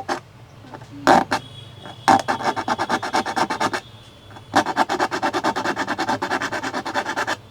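Round file rasping back and forth in quick strokes, about eight a second, in two runs with a short pause between, widening the micro-USB opening in a Saregama Carvaan radio's casing to take a Type-C charging socket. A couple of knocks come about a second in.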